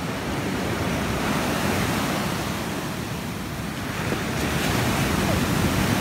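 Strong surf breaking and washing up a sandy beach, with wind buffeting the microphone. The surf grows louder from about four seconds in as a bigger wave breaks close to shore.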